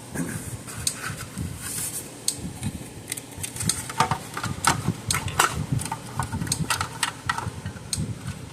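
Irregular light clicks and knocks of hands handling the switched-off fence energizer and test leads on a workbench.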